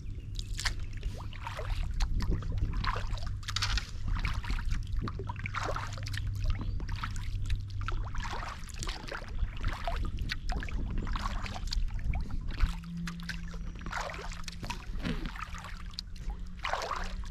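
Kayak paddle strokes: the blades dip into the water and drip, one splash about every second.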